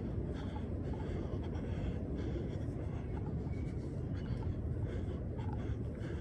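Footsteps scuffing in soft, dry sand, a few faint scratchy steps, over a steady low rumble.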